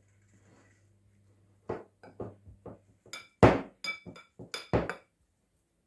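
Metal spoon clinking against a ceramic bowl while pressing down a layer of shredded chicken: a string of about a dozen short ringing clinks starting a couple of seconds in, the loudest near the middle.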